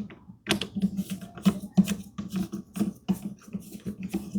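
Quick, irregular clicks and taps, several a second, as metal drawer-slide parts are fitted and fastened.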